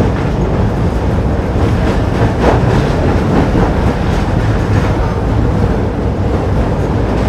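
Tatra K2YU articulated tram running along the track, heard from inside the passenger saloon: a steady rumble of wheels on rails with rattling from the body, a faint steady hum, and one sharper knock about two and a half seconds in.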